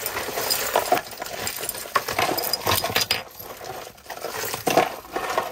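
Metal jewelry clinking and rattling as pieces are handled and set down, in a run of small irregular clicks.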